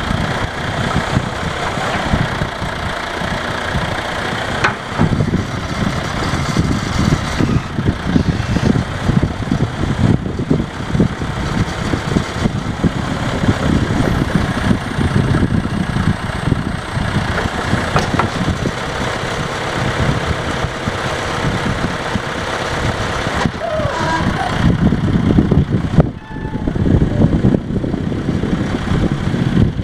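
John Deere 310A backhoe loader's diesel engine running steadily, with a brief dip in loudness near the end.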